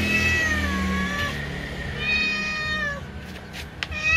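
A cat meowing twice, two long calls that each fall slightly in pitch, followed by a few soft clicks near the end.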